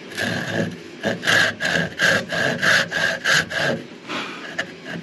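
Hand saw cutting through a wooden upright in quick back-and-forth strokes, about three a second, pausing briefly near the end.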